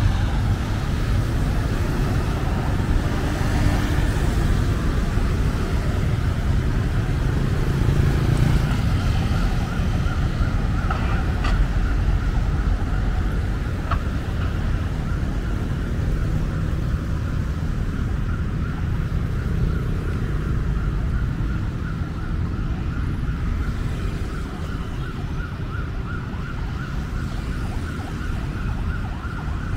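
City street traffic rumbling, with a high warbling siren coming in about ten seconds in and pulsing steadily on.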